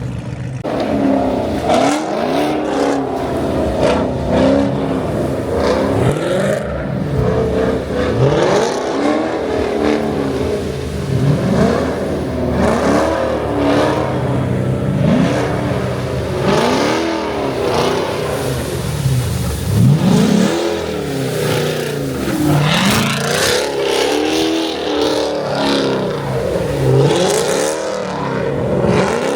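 V8 car engine revving up and dropping back again and again, about every two seconds, as the car slides and spins its wheels on snow.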